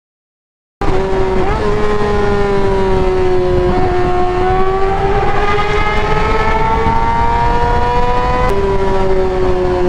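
Kawasaki ZX6R inline-four engine breathing through an M4 GP aftermarket exhaust under way, cutting in suddenly a little under a second in. It holds a steady high note that climbs slowly, with short drops in pitch at gear changes, the clearest near the end, over wind rush.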